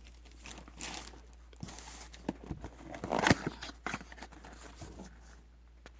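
Plastic trading-card pack wrappers crinkling as they are handled, in scattered short rustles with a few sharper crackles, the loudest about three seconds in.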